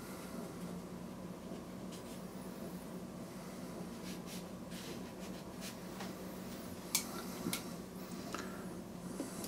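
A fine brush drawing lightly across watercolour paper, a faint scratchy whisper over a steady low hum, with two light ticks about seven seconds in.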